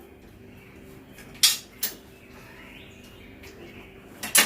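Metal clanks of a mower seat and its suspension bracket being set onto the mounting bolts: one about a second and a half in, a lighter one just after, and a loud double clank near the end, over a faint steady hum.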